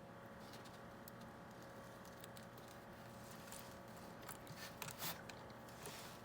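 Faint handling sounds of stickers and a plastic RC truck body: a few soft clicks and rustles, the loudest about five seconds in, over a steady low room hum.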